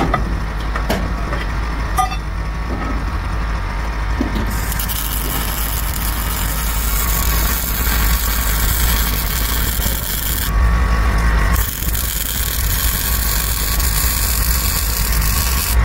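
MIG welder welding a steel padlock lockbox onto a shipping container's cargo door: a steady hiss in two runs, the first starting a few seconds in and the second after a pause of about a second, over a steady low rumble. A couple of light knocks come before the welding starts.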